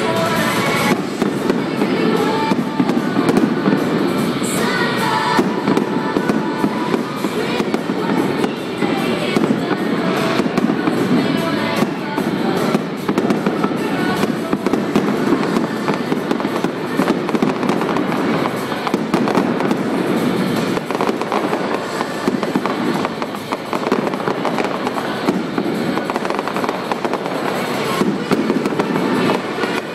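Fireworks going off in a rapid, continuous barrage of bangs and crackles, with music playing underneath.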